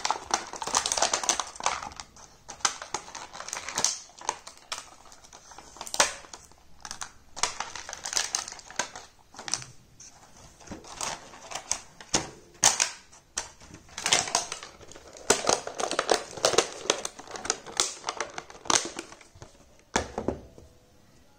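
Small plastic miniature toy pieces being handled, clicking and tapping irregularly as they are picked up and set down, with stretches of rustling packaging. It goes quiet near the end.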